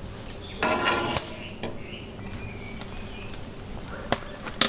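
Metal slotted skimmer working in a cauldron of boiling beef tongues, skimming off the foam: a brief scraping splash about a second in, then a few sharp taps of the skimmer on the rim.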